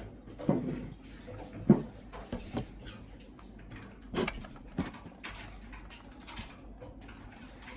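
A handful of short, irregular knocks and clatters, as of objects being handled and set down on a table, the sharpest about a second and a half in.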